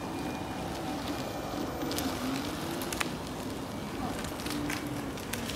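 Inmotion V11 electric unicycle being ridden on asphalt: a faint motor whine that rises and falls in pitch as the speed changes, over steady tyre noise, with a few light clicks.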